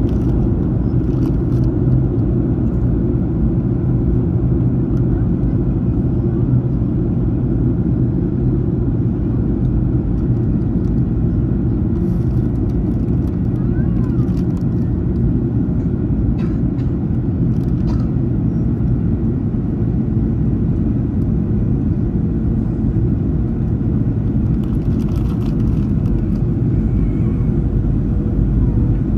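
Steady low cabin rumble of a Boeing 737-900ER in descent, airflow and CFM56-7B engine noise heard from inside the passenger cabin, with a few faint clicks or rattles.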